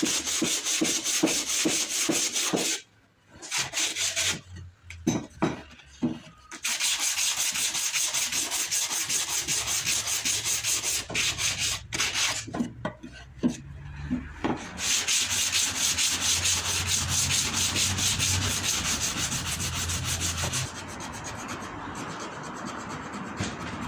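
Wooden cutting board being sanded by hand with sandpaper: quick back-and-forth rasping strokes, stopping briefly a few times.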